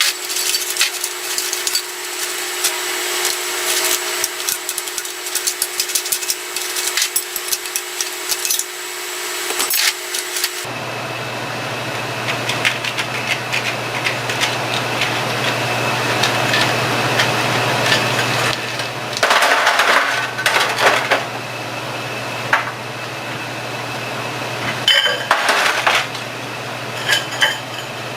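Steel tools and parts clinking and clattering in hand disassembly of a jackshaft bearing assembly, with many sharp metallic taps over a steady shop hum that changes abruptly about ten seconds in.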